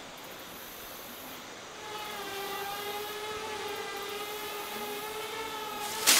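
Camera drone's propellers whining steadily over the rush of a river, the whine setting in about two seconds in. Near the end a loud sudden crash cuts it off: the drone falling into the river.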